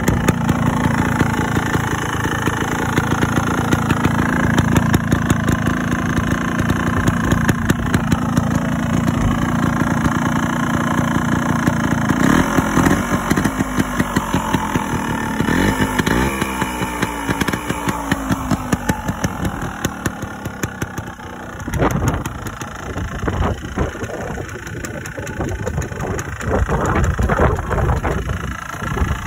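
Scorpa SY250's Yamaha TYZ 250cc two-stroke single-cylinder engine running at idle, with a couple of short throttle blips a little under halfway through.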